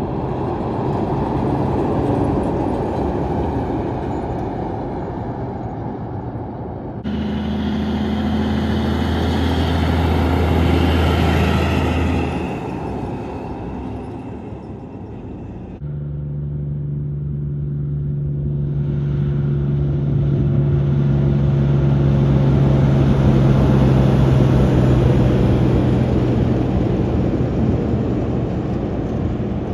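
Heavy diesel trucks driving past one after another, engines running with tyre noise, each growing louder as it nears and then fading, with hard cuts about seven and sixteen seconds in. The last is a multi-trailer side-tipper road train whose engine holds a steady low drone as it goes by.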